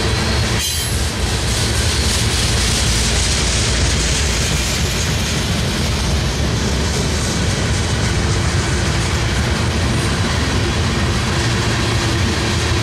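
Covered hopper cars of a loaded sand train rolling past close by, a steady noise of steel wheels on rail. There is one brief knock just under a second in.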